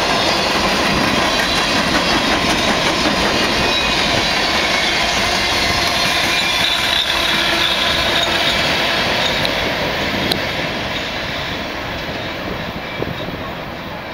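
Freight cars of a Union Pacific manifest train rolling past, steel wheels running on the rails in a steady clatter. The sound fades over the last few seconds as the final cars pull away.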